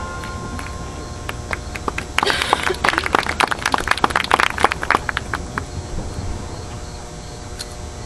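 The last of the marching band's brass chord dies away, and about two seconds in a crowd starts clapping and cheering, scattered and irregular. The applause thins out after about five seconds.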